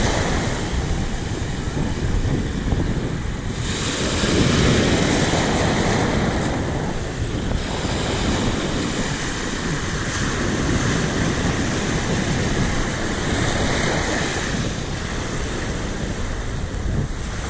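Surf breaking and washing up the beach, with strong wind buffeting the microphone. The wash swells and fades as waves come in, loudest from about four seconds in.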